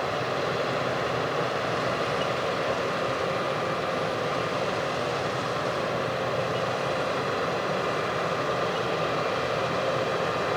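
Heavy farm machinery running steadily, an even engine and machine drone with a faint steady whine.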